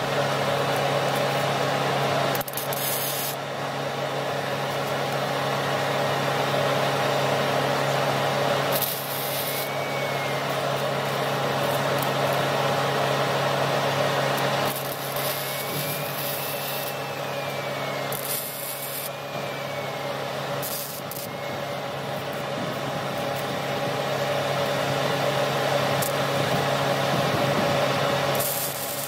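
MIG welding with .035 ER70S-6 solid steel wire from a Miller Multimatic 220 AC/DC: the steady crackling sizzle of the arc as a bead is laid, joining a new pintle hitch to a thin-walled steel trailer tongue tube.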